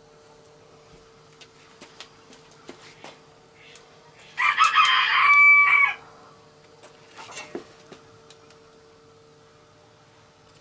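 A rooster crows once, loud, starting about four seconds in and ending on a held note. Around it are faint scattered clicks and a steady faint hum.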